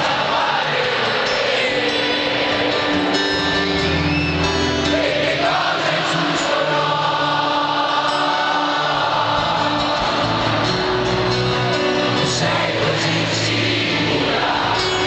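Live rock band and lead singer performing a song at a stadium concert, heard from far back in the stands.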